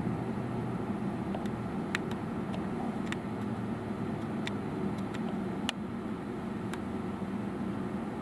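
Steady low rumble of an idling vehicle engine, with several short, sharp clicks scattered through it.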